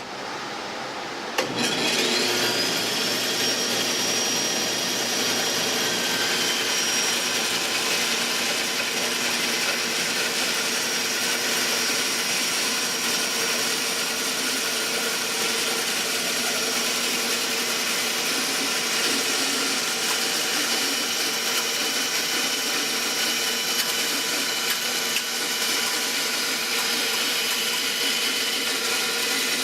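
Electric saw switched on, its motor whine rising as it spins up about a second and a half in, then running steadily while cutting 2x4 lumber to width.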